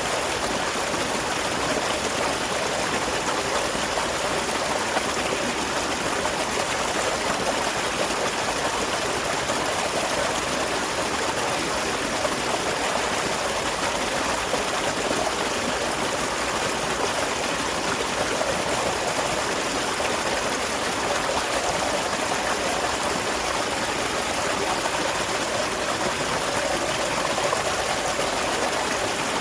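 Small waterfall running steadily: a constant rush and splash of falling water.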